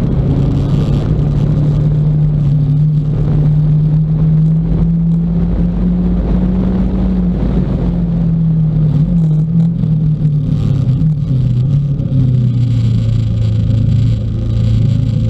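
Motorcycle engine running on the road, heard close up from a tank-mounted camera, with wind rumble on the microphone. The engine note holds fairly steady, wavers around ten seconds in and settles lower about twelve seconds in.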